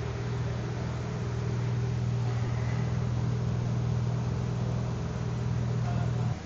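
KTM 790 Adventure's parallel-twin engine idling steadily, then cutting off suddenly about six seconds in.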